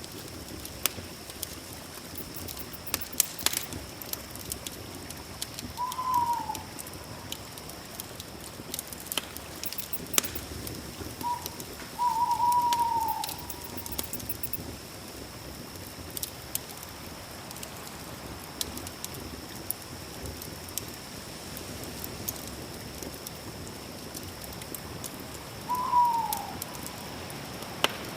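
Campfire crackling with frequent sharp pops over a steady high insect drone, and an owl calling three times in short falling hoots, the middle call longer.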